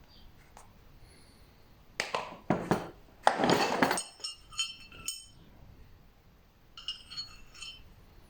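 Hard objects being handled: a few seconds of knocking and clattering, then two short runs of bright, ringing clinks.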